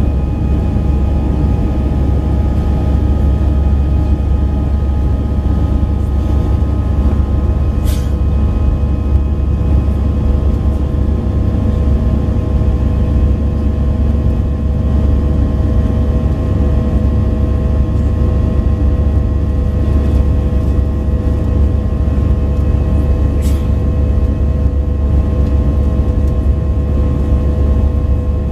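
Airbus A319 cabin noise in flight: the jet engines and the airflow make a steady, loud rumble, with several steady whining tones over it. Two faint clicks come through, one about eight seconds in and one later on.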